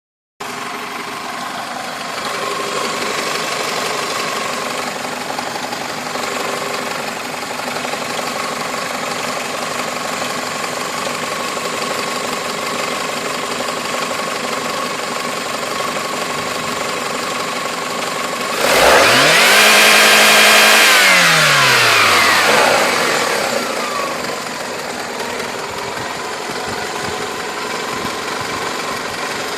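Toyota 5S-FE 2.2-litre four-cylinder engine running steadily, then revved sharply once about two-thirds of the way in, held high for a couple of seconds and let fall back to idle. The owner suspects worn piston rings, with blow-by and an unstable vacuum at low to medium revs.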